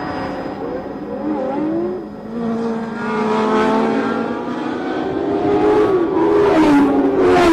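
1977 Formula One racing cars passing at speed, several engines at once, their pitch rising and falling as they go by, with the loudest pass near the end.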